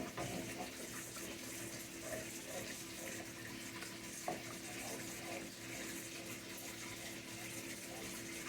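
Cream-of-chicken sauce simmering in a pan, a steady faint hiss and bubble over a low constant hum, with one light knock of the stirring spoon about four seconds in.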